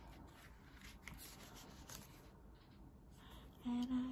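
Faint rustling and flicking of paper pages as a photobook is leafed through by hand. Near the end a short hum of a person's voice comes in, louder than the rustling.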